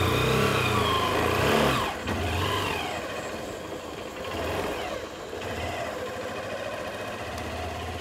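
Motorcycle engine revving hard for about two seconds, then dropping back suddenly, with a couple of shorter throttle blips before it settles into a steady, quieter idle.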